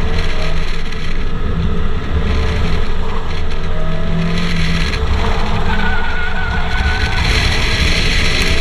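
Roadster's engine working hard through an autocross run, rising and falling in pitch as the driver accelerates and lifts between the cones, with road and wind noise on the car-mounted camera.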